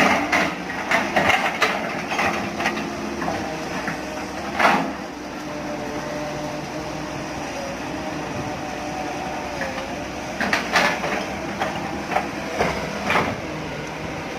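A machine running steadily, with clusters of sharp metallic clanks and knocks: several in the first few seconds, a loud one near the middle, and more about three quarters of the way through.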